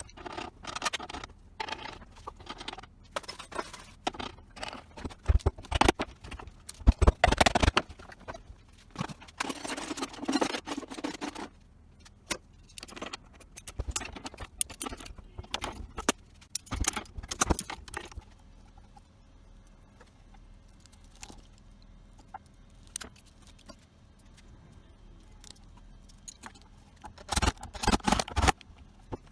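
Irregular metallic clinks, knocks and short scrapes, typical of metal parts and tools being handled. A quieter stretch follows with a faint steady hum, and then a brief cluster of knocks near the end.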